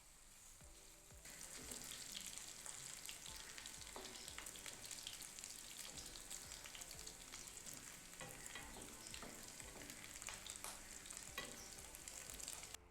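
Boiled pork pieces frying in oil in a pan, a steady sizzle and crackle with occasional sharp clicks. The sizzle grows stronger about a second in and cuts off just before the end.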